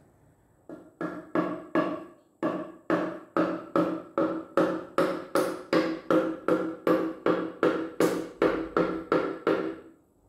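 The end of a hammer's wooden handle tapping a Lister diesel piston down through a ring compressor into its cylinder. About two to three taps a second, each a sharp knock with a brief metallic ring. The taps start about a second in and stop near the end.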